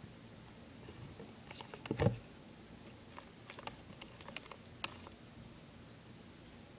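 A six-lined whiptail's feet scrabbling on a clear plastic tub: scattered light clicks and taps, with one louder thump about two seconds in.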